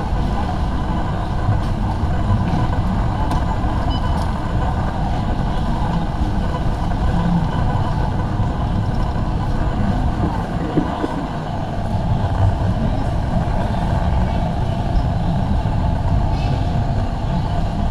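Busy warehouse store ambience: a steady low rumble of shopping trolleys rolling over the concrete floor, mixed with the indistinct hubbub of a crowd of shoppers.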